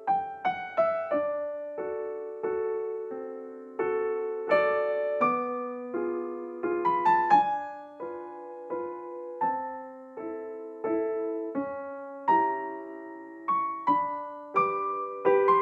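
Background music: solo piano playing a slow, gentle melody of struck notes and chords.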